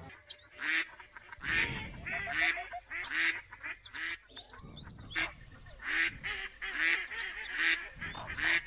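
Domestic ducks quacking: a run of loud, harsh quacks about once a second, with softer short calls in between.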